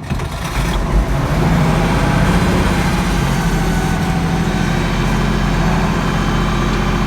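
International Harvester 1486 tractor's diesel engine on a cold start after sitting three months: it turns over slowly, catches about a second in, then runs steadily at idle.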